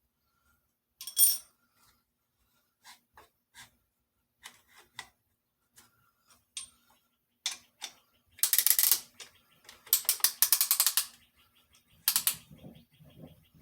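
Strap-type piston ring compressor worked with a ratchet: two runs of rapid ratchet clicking past the middle, among scattered light metal clicks and taps, with some scraping near the end.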